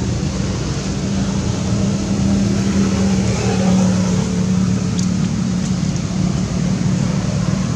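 Steady low drone like a nearby engine running, holding one low pitch throughout, with no clear animal calls.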